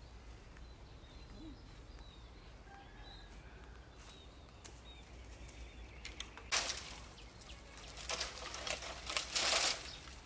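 Faint bird chirps over a quiet outdoor background. From about six and a half seconds in come loud bursts of rustling and crackling from dry bamboo and leaf litter being disturbed.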